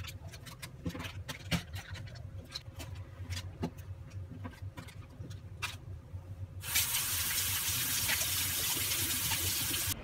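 Aluminium foil crinkling and crackling as it is folded and crimped into parcels, a run of quick irregular crackles. About seven seconds in, a steady, louder hiss takes over and then cuts off suddenly.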